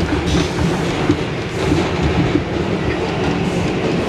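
New York City subway car of the 2 train running between stations, heard from inside the car: a steady, loud rumble of wheels and running gear on the rails, with occasional sharp clacks.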